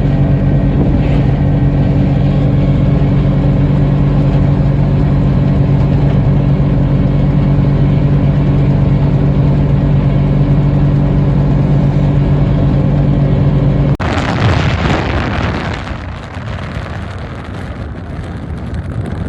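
A motor vehicle's engine drones at a steady, unchanging pitch. About fourteen seconds in it cuts off abruptly, giving way to a rushing noise of wind and traffic that fades down.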